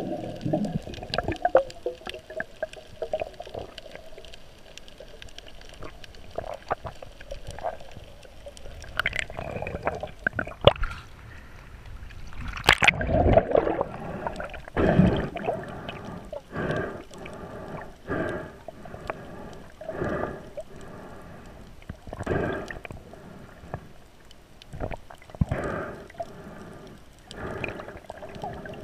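Muffled underwater sound of water moving around a camera housing, gurgling at first, then a series of short swishes about once a second.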